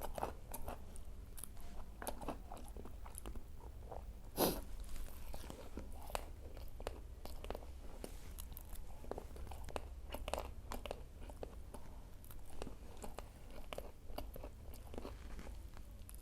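Close-miked chewing and crunching of crisp Indonesian fried fritters (gorengan) and raw chillies: irregular crackly bites and chews, with one louder crunch about four and a half seconds in.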